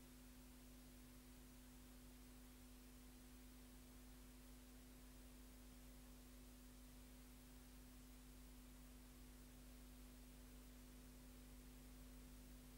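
Near silence: a faint steady electrical hum with hiss, the empty audio track of an analogue videotape transfer.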